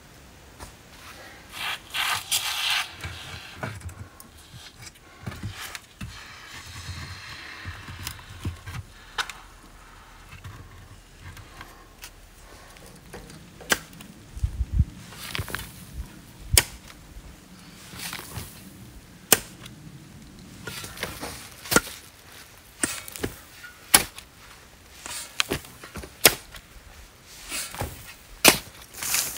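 Steel shovel digging into sandy soil, the blade biting in and scraping with a sharp knock every one to two seconds, after a burst of rustling about two seconds in.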